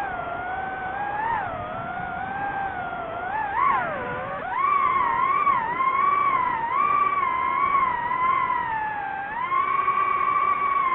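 DJI FPV drone's motors and propellers whining, the pitch gliding up and down with the throttle. About four seconds in the pitch sags, then jumps higher and louder and stays up.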